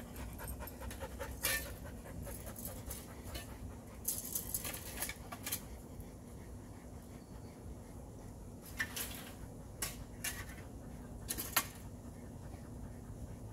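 A dog panting, in short runs of quick breaths with pauses between them.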